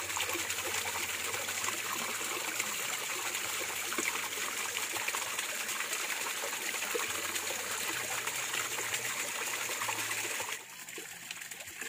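Forest stream trickling steadily, a constant rush of running water that falls suddenly quieter about ten and a half seconds in.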